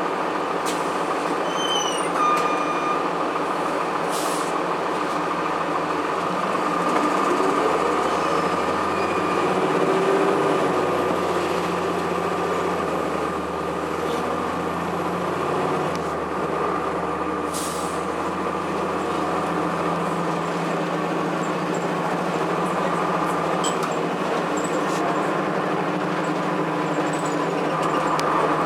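Cummins ISC diesel engine of a 2002 Blue Bird CS transit bus running as the bus drives, heard from inside the cabin with steady road and body noise. Engine pitch swells and eases about a third of the way in, with two short sharp noises.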